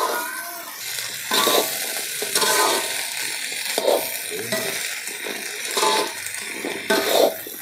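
Perforated metal spatula scraping and turning sliced taro stems in a metal wok, about five scrapes over a steady sizzle of stir-frying.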